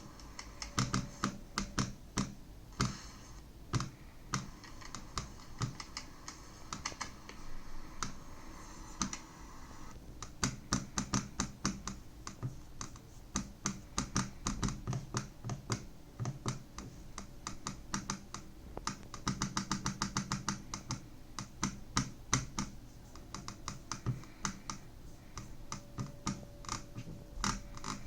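HP Envy 13 laptop touchpad clicking over and over in irregular runs as it is pressed and tapped, an irritating noise that is a fault of the touchpad.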